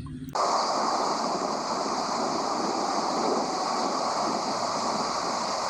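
Steady stream of running water splashing over a small muddy toy airplane as it is washed clean. It comes on suddenly right at the start.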